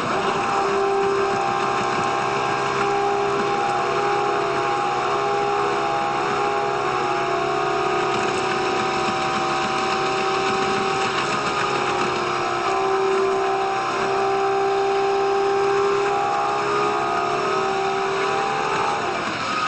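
Diesel railcar running, its engine and running noise sped up about five times into a steady whine with held tones that shift in pitch and glide down near the end.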